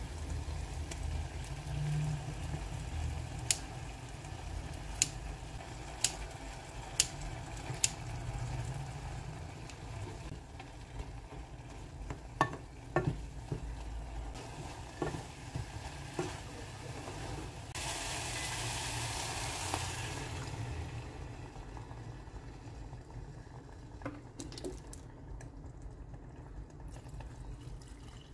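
Kimchi frying in oil in a saucepan as it is scraped in and stirred with a wooden spoon: a steady low sizzle with a run of sharp taps over the first several seconds and scattered knocks of the spoon against the pot. The hiss grows louder for a couple of seconds about two-thirds of the way through.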